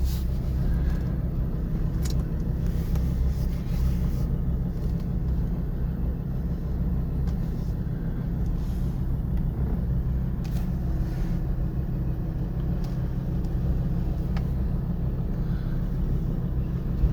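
Car engine and road noise heard from inside the cabin: a steady low hum while driving slowly, with a few faint clicks.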